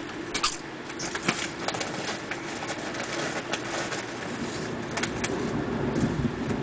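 Steady rain hiss with irregular sharp taps of drops striking a hard surface, left over from a hailstorm.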